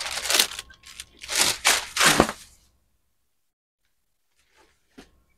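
Plastic packaging crinkling and rustling in several quick bursts as folded fabric is pulled out of it, stopping after about two and a half seconds. A faint tap near the end.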